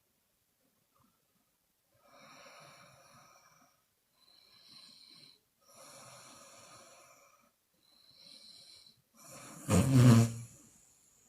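A woman snoring in her sleep. After a quiet start come four soft, breathy breaths a few seconds apart, then one loud, low snore near the end.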